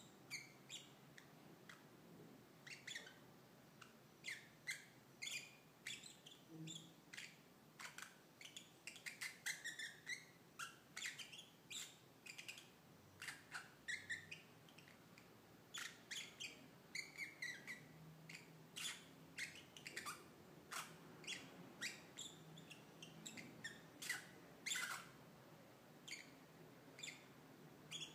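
Lovebirds giving faint, short, high-pitched squeaks and chirps, one after another in irregular runs. This is the soft chatter lovebirds make as they go to sleep, which the owner calls snoring.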